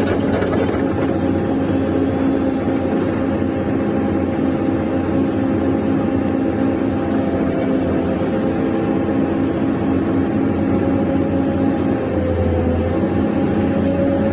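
Steady motor hum from radio-controlled model construction machines at work, several fixed tones held throughout. About twelve seconds in the pitch dips slightly and the low hum swells briefly, as under a change of load.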